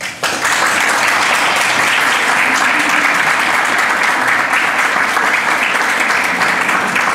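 Small seated audience applauding at the end of a dance piece. The clapping breaks out suddenly out of quiet and goes on steadily.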